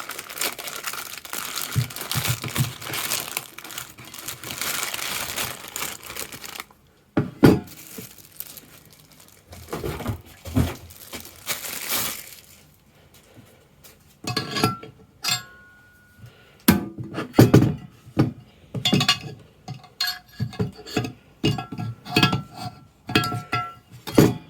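Packaging crinkling and rustling for about seven seconds as it is unwrapped, then scattered knocks, clicks and thuds as the parts of a hot air soldering station are handled and set down, with one short squeak-like tone partway through.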